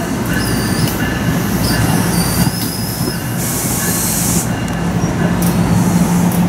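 A train rolling past with its wheels squealing on the rails in high, wavering tones over a steady rumble. A short burst of hiss comes about three and a half seconds in.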